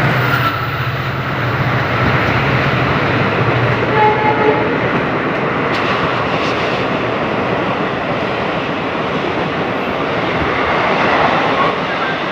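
Passenger coaches of the 11301 Udyan Express running through at speed: a loud, steady rush of wheels on rails, with a brief horn note about four seconds in.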